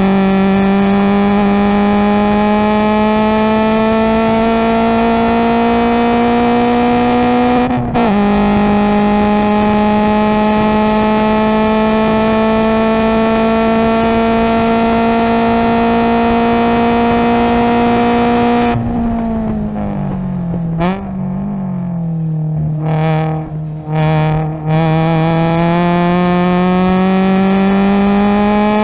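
Subaru BRZ race car's flat-four engine heard from the cockpit at full throttle, its pitch climbing steadily in fourth gear, dropping sharply at a quick upshift about eight seconds in, then climbing again through fifth. After about nineteen seconds the driver lifts and brakes: the pitch falls, with short throttle blips on the downshifts to third, and near the end the engine pulls hard again with rising pitch.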